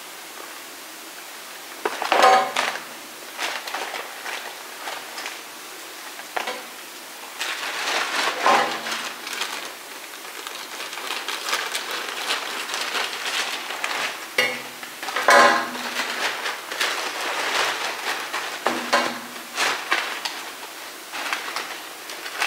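A plastic poly mailer bag crinkling and rustling as it is handled and cut open with scissors. It grows to a dense, continuous rustle with sharper crackles from several seconds in.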